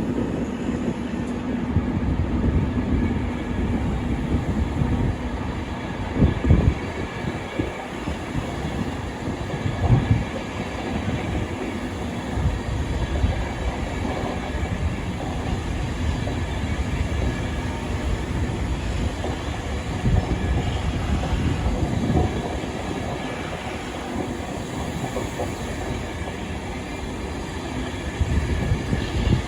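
A train running on the rails: a steady rumble with rail noise and a few sharper knocks.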